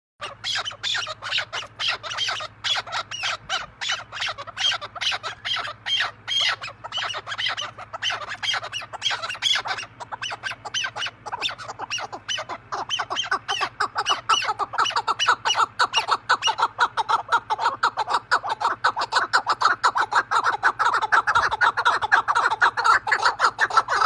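Chukar partridge calling a rapid, unbroken run of short repeated notes, a few a second at first, then faster and louder through the second half.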